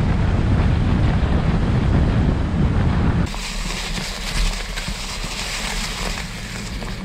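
Wind buffeting the microphone of a camera mounted on a moving bicycle, a heavy low rumble. About three seconds in it cuts abruptly to a quieter hiss of the bike rolling along a leaf-covered trail.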